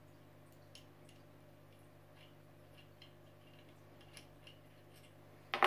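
Faint metallic ticks and clicks of an Allen key turning the small screws that hold the end piece on a CO2 pressure regulator's manifold, with one louder sharp click near the end.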